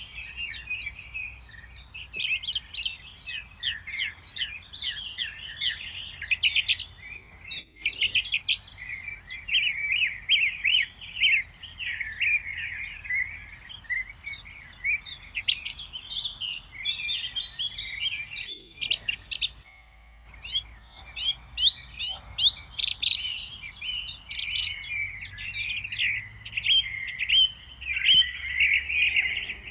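Songbirds singing almost without pause: fast, chattering runs of high chirps and trills, with a short lull about two-thirds of the way through.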